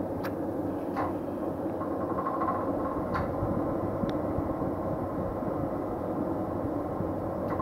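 Wheel balancer spinning a tyre-and-wheel assembly for a balance check: a steady mechanical whir with a few light clicks and a brief thin whine in the middle.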